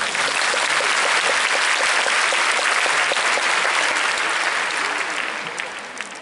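Large audience applauding, starting as the band's music ends; the clapping holds steady, then dies away over the last second or two.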